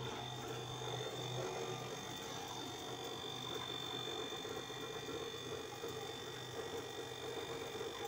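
Split air conditioner outdoor unit running on test, its compressor and condenser fan giving a steady hum with a faint high whine. The compressor is working properly after the repair.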